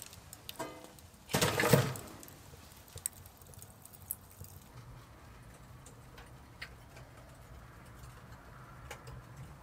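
A split log pushed into a wood-burning tent stove through its round side door, scraping on the metal and landing in the firebox with a clatter about a second and a half in; the stove is being stoked to boost the heat for the oven on top. Faint crackles and ticks from the fire follow.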